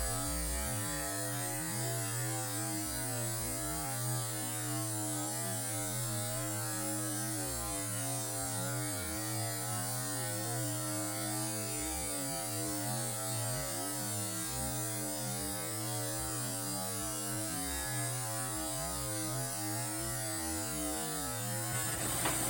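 Steady electrical hum with a wavering, hissy noise over it.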